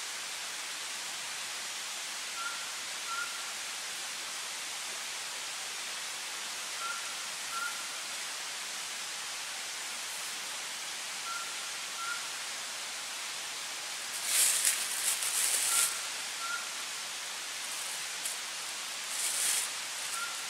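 Steady hiss of night forest ambience. Over it, a short two-note call repeats about every four and a half seconds. Brush rustles for about two seconds past the middle and again near the end.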